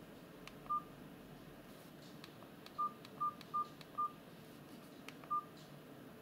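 Keypad beeps of a myPhone Halo Easy basic mobile phone as its buttons are pressed: six short single-pitched beeps, four of them in quick succession in the middle, with faint clicks between them.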